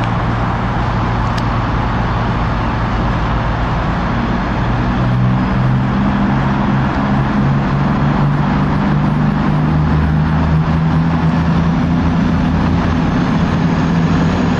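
Class 221 Voyager diesel multiple unit's underfloor diesel engines running loud and steady. The engine note steps up in pitch about four seconds in and again about ten seconds in as the train powers away.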